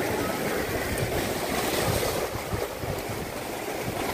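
Rough sea surf breaking and washing over shoreline rocks: a continuous rush of water that swells and eases.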